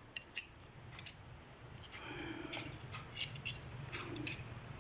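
Small steel parts of a Leatherman Charge TTi multitool clicking and clinking by hand as a side plate is fitted during reassembly: a dozen or so sharp, irregular clicks.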